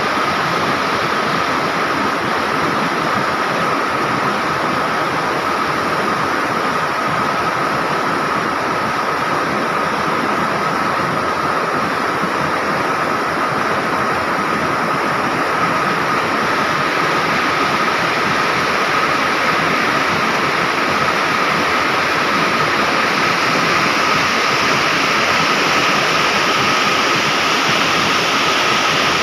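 River water rushing steadily, an even loud rush of flowing water.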